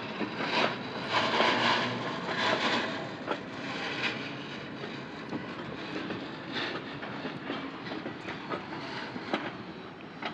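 Sprayer train's cars rolling past, wheels clicking over the rail joints over a steady rumble. It is louder for the first few seconds, then a little softer.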